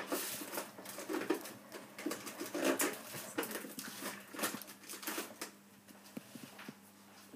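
A hand beating thin baghrir batter in a bowl: irregular wet slaps and squelches, thinning out near the end.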